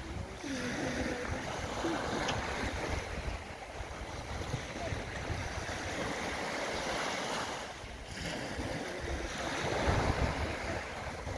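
Small sea waves breaking and washing up a sandy beach, the surf swelling and easing, with a louder wave breaking near the end. Wind buffets the microphone with a low rumble underneath.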